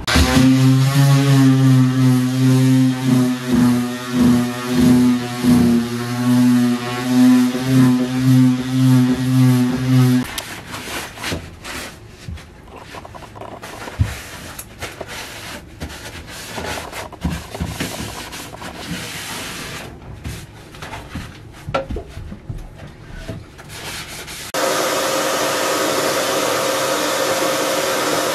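A machine hums loudly at a steady pitch, pulsing in level, for the first ten seconds. Then comes irregular hand rubbing and scraping on wood with small knocks. Near the end a steady motor noise starts.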